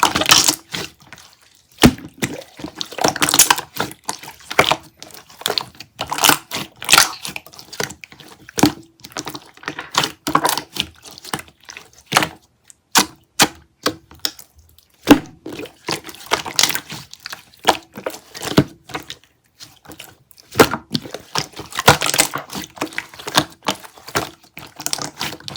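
A sticky, chewy material being squeezed and pulled close up, giving irregular clusters of wet clicks and crackles.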